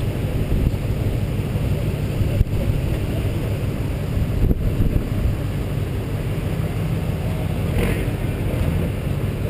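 Pickup truck engine running close by, a steady low rumble.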